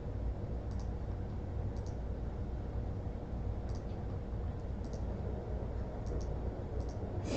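Light, sharp clicks, a dozen or so at irregular intervals, over a steady low electrical hum.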